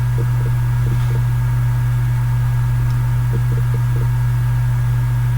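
Steady low electrical hum with faint higher steady tones, unchanging throughout.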